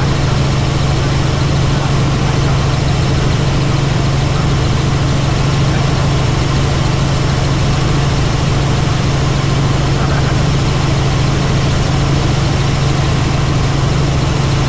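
Helicopter in flight: a steady, loud drone of engine and rotors with a strong low hum, unchanging throughout.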